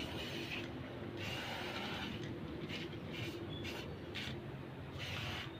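Aerosol spray-paint can hissing in a series of short bursts with brief pauses, as black paint is sprayed onto a metal flower-pot stand.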